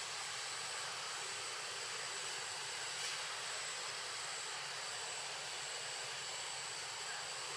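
Steady outdoor background hiss with a faint, thin high whine held throughout, and a soft tap about three seconds in.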